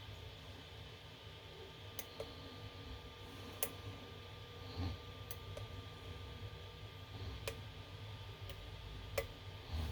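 Faint, scattered clicks of a lock pick and tension wrench working the pins of an Abus lock, about six of them spread over several seconds, over a faint steady hum.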